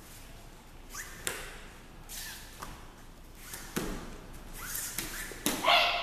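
Martial-arts uniform snapping and swishing with each punch and turn of a solo form, with a few sharp snaps. Near the end comes a short, loud shout, a kiai on the final strike.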